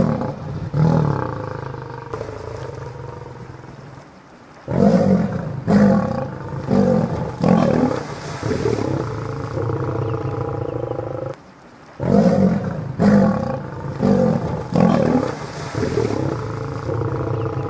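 Male lions growling and snarling in rough, repeated bursts as they fight a crocodile, with two brief pauses between clusters of calls.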